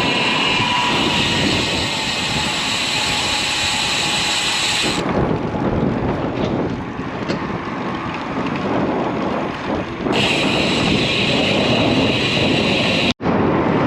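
Steady wind rush on the microphone and road noise from a moving road bicycle, with passing traffic mixed in. The sound cuts out for an instant near the end.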